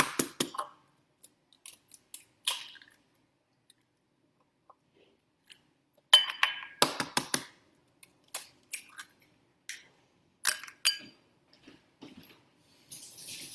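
Eggs being cracked and whisked in a bowl: scattered sharp clinks and taps of shell and utensil against the bowl, with a quick run of strikes about six seconds in and a short scrape near the end.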